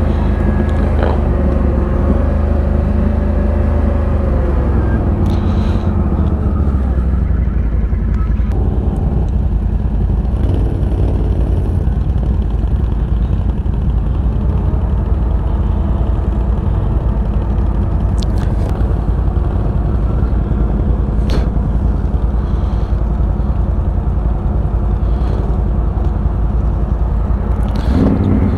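A Can-Am ATV's V-twin engine running steadily while being ridden, its pitch shifting briefly in the first few seconds.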